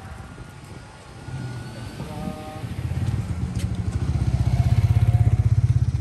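A motor vehicle's engine running with a low, even pulsing, growing louder as it draws near and loudest about five seconds in.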